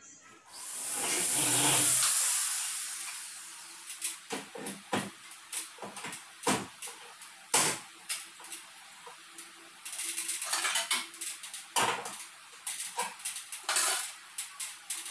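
A loud rubbing rush in the first two seconds, then a long run of light metallic clicks, taps and knocks as aluminum framing channel and its screws are handled and fitted at the ceiling track, with a faint steady hum underneath.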